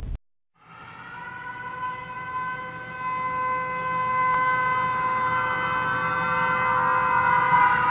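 Intro sound effect for a title card. A boom cuts off right at the start, then after a brief gap a steady siren-like synthetic tone with overtones swells in and grows louder, beginning to bend in pitch near the end.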